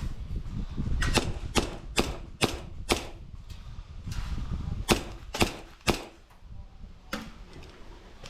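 Airsoft gun firing single shots, about two a second, in short strings: a string of about six shots in the first three seconds, three more around five seconds in, and a last one about seven seconds in.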